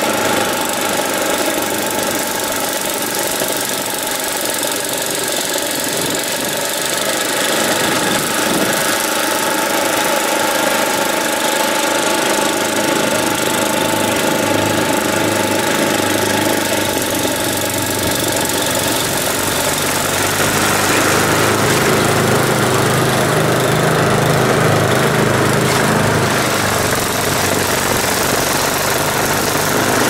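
Ariens snowblower engine running steadily as the machine clears and throws snow. From about two-thirds through it sounds louder and deeper.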